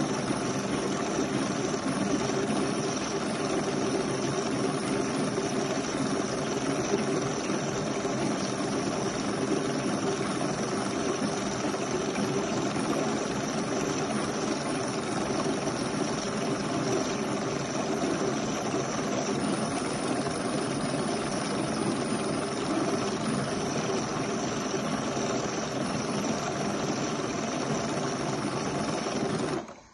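De'Longhi PrimaDonna Elite espresso machine frothing milk in its milk carafe: a steady mechanical hum and hiss from its steam and pump system, which cuts off suddenly near the end as the frothing cycle finishes.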